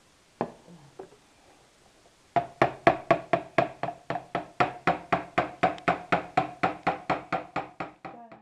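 Two single knocks, then a fast, even run of knocks, about four a second, each with a short ring, which stops abruptly near the end.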